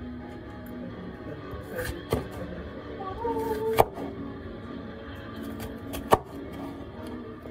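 Kitchen knife cutting a red bell pepper on a plastic cutting board: a few sharp knocks of the blade on the board, the loudest about four seconds in and another about six seconds in. Steady background music runs underneath.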